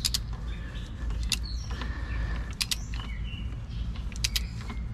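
A torque wrench ratcheting on a throttle-body bolt as it is tightened: sharp clicks in small groups about every second and a half, with faint creaks between them.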